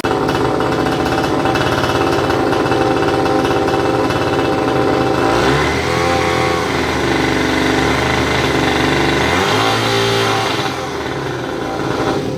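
Hangkai 3.5 hp outboard motor running. Its revs rise about halfway through and come back down a few seconds later.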